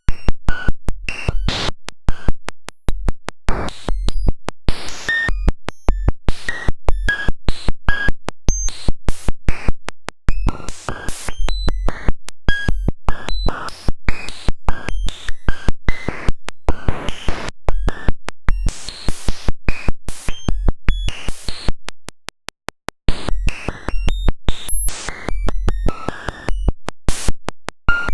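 Sonified cellular-automaton data: the normalised population ratio of a Golly Generations rule written directly as 32-bit float audio samples. It plays as a harsh, glitchy stream of irregular clicks, short tones jumping between pitches and bursts of noise, with a brief drop-out about three quarters of the way through.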